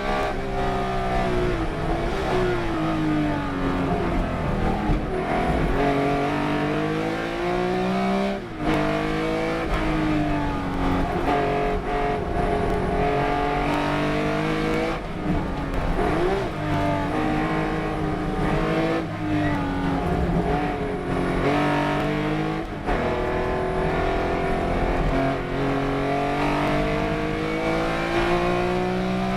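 Race car engine running hard around a circuit, its pitch repeatedly climbing and falling with changes in speed, with a few sudden brief cuts in the sound.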